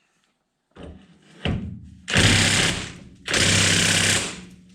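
Impact wrench running in two bursts, about two and three seconds in, loosening long bolts, after a single knock.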